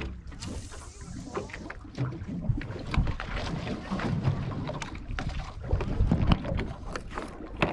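Wind buffeting the microphone over water slapping against the hull of a small aluminium boat, with scattered light knocks and clicks.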